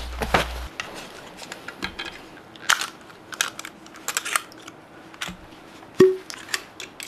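Scattered small clicks, taps and rustles of objects being handled, with a sharper knock about six seconds in. A low hum cuts off just under a second in.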